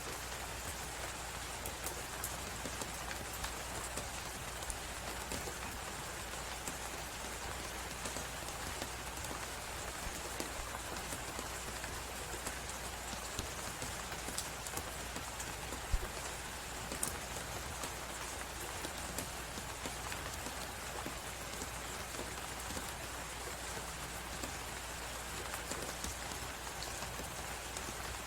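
Steady snowstorm hiss with the small pops and crackles of a wood fire scattered through it, and one sharper pop about sixteen seconds in.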